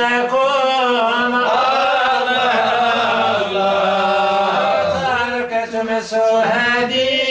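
Unaccompanied male Sufi devotional chanting: the lead chanter (musammi') draws out long, slowly bending melismatic lines over a steady low held note.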